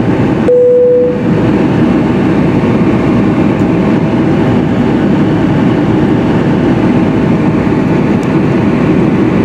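Steady airliner cabin noise during descent: engine and airflow noise with a faint steady hum. A short single tone sounds about half a second in.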